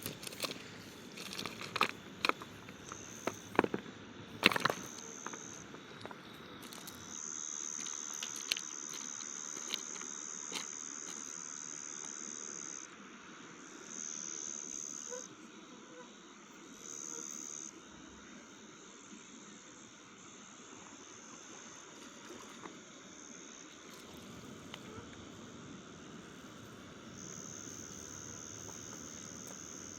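Insects trilling: a high, steady buzz that comes and goes in long bouts, several seconds each. A handful of sharp clicks or knocks sound in the first few seconds.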